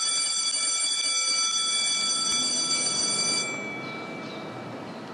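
An electric bell ringing steadily, a bright metallic ring of several held pitches, then stopping about three and a half seconds in.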